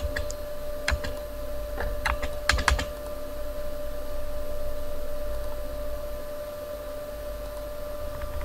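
Computer keyboard keystrokes and mouse clicks: about eight sharp clicks in the first three seconds, some in quick runs, then none. A steady electrical hum with a faint constant tone runs underneath.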